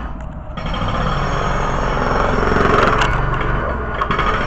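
Roadworks machinery digging up a pavement: loud, steady machine noise that swells about half a second in.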